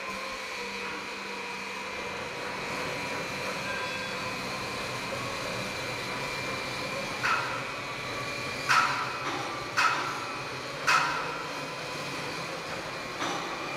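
Hydraulic die spotting press running with a steady whining hum. Five sharp knocks come in the second half as the machine's parts move and stop.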